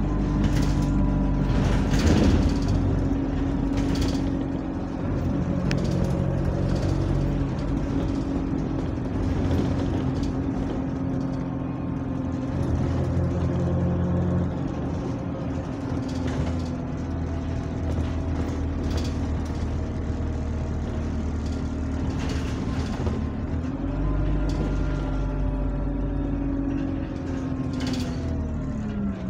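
Single-deck bus engine heard from inside the passenger saloon while the bus drives, a sulky, moany engine note with a steady whine that drifts slowly lower, and scattered sharp rattles from the bodywork. Near the end the note falls sharply as the bus slows.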